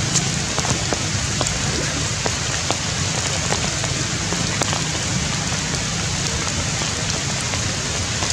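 Steady rain falling, an even hiss with scattered drops ticking now and then.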